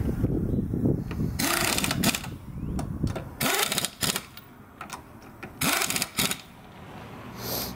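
Pneumatic impact wrench hammering on a car wheel's lug nuts in three short rattling bursts, each about half a second to a second long.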